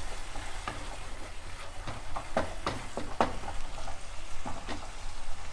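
Onion, ginger-garlic and tomato masala sizzling in a pan while a spoon stirs it, with irregular clicks and scrapes against the pan.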